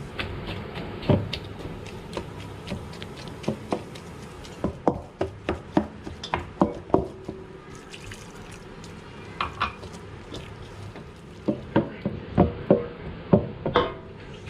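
Dishes and utensils clinking and tapping: a run of irregular light knocks, some ringing briefly, in two busy clusters, one in the middle and one near the end.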